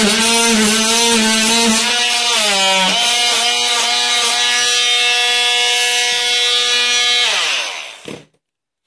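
Vityaz VMR-12 cordless oscillating multi-tool running with a steady buzzing hum as its blade cuts into rotten wood, the pitch dipping each time the blade bites. About seven seconds in, the motor winds down with a falling pitch and stops.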